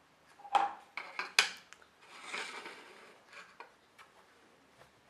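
Small metal clicks and a short scrape as a screwdriver works a screw and the metal parts of an opened laptop hard drive are handled: two sharp clinks early, then a brief scraping and a few light ticks.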